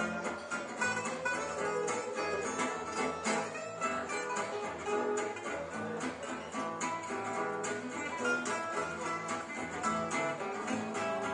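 Live gypsy jazz (jazz manouche) played on acoustic guitars and plucked double bass, with a steady strummed rhythm under picked melody lines.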